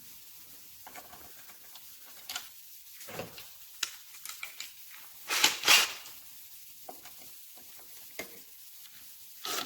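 Handling sounds: scattered light clicks and rattles as the decking fastener jig and small clips and screws are handled, with a louder rustle about five and a half seconds in and a short scrape near the end.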